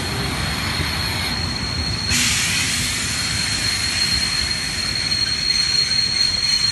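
Steam turbine locomotive running: a steady high whine over a low rumble and hissing steam, the hiss growing sharply louder about two seconds in.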